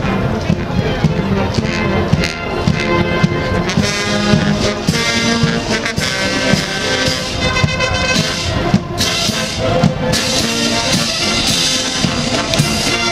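Military marching band playing a march as it passes: brass (trombones, trumpets, tubas) carrying the tune over snare and bass drums keeping a steady beat.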